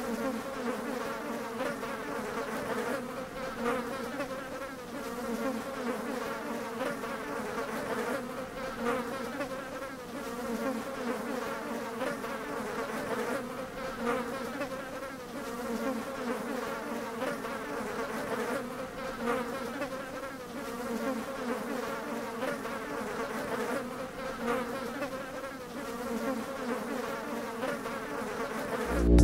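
A swarm of flies buzzing steadily, many overlapping wingbeat hums wavering in pitch.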